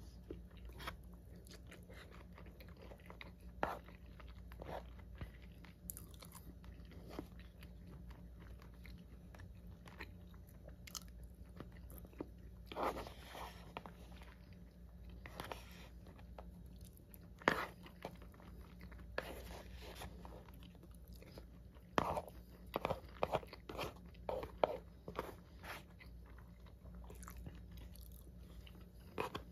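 Close-miked eating: a person chewing mouthfuls of soy-marinated raw fish and rice, with scattered short clicks and taps of wooden chopsticks against a plastic takeout bowl. The sounds come in irregular clusters, busiest in the second half.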